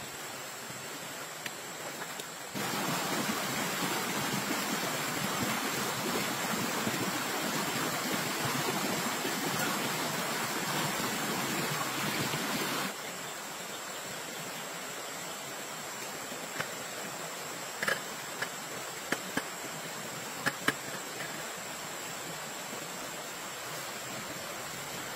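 Shallow stream flowing over stones, a steady rush of water, louder for about ten seconds from a couple of seconds in. In the second half a few short sharp clicks sound over the water.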